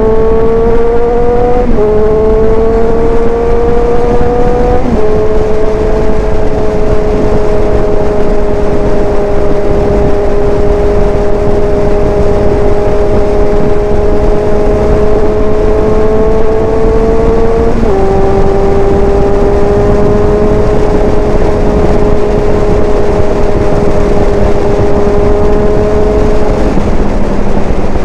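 Motorcycle engine under steady throttle at highway speed. Its pitch climbs slowly and steps down three times, about 2, 5 and 18 seconds in, as the rider shifts up. Heavy wind rush over the microphone lies under the engine.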